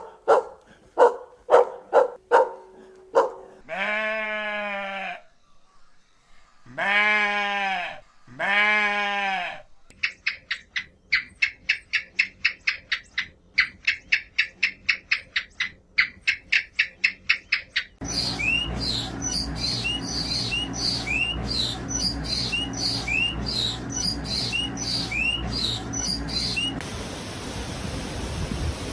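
A sequence of farm animal calls: a dog barking about eight times, then three long goat bleats, then a fast run of short bird chirps, and finally birds chirping with quick rising notes over a steady hiss.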